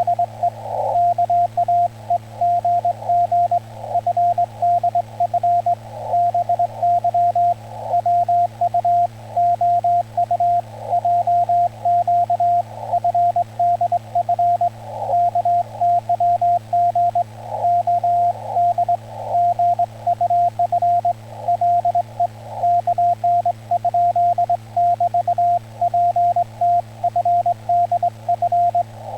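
Morse code on a ham radio: a single steady tone keyed on and off in quick dots and dashes, sending Korean (Hangul) Morse code. A steady low hum runs underneath.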